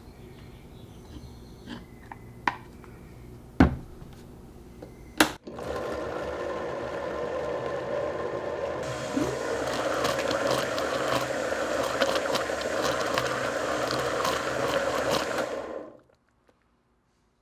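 A few sharp knocks, then a countertop blender starts about five seconds in, puréeing salsa verde ingredients with cilantro. It runs steadily, grows louder and brighter around nine seconds in as it speeds up, and cuts off suddenly near the end.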